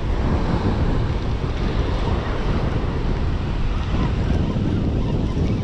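Wind buffeting the microphone over the steady wash of surf on a sandy beach.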